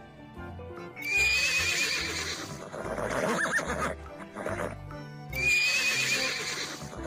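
A horse whinnies loudly twice, about four seconds apart, with galloping hoofbeats, over background music.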